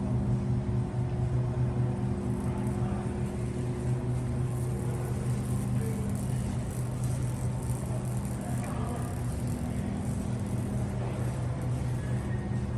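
A steady low mechanical hum, constant in pitch, over a bed of noise.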